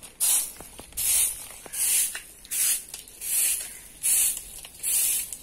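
Stick broom of thin coconut-leaf midribs sweeping a dirt road: a swish with each stroke, about seven strokes a little under a second apart.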